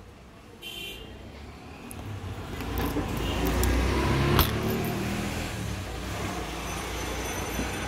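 Low steady motor-vehicle rumble that builds over the first few seconds, with keys jangling and a sharp click about four seconds in as the scooter's ignition key is turned on.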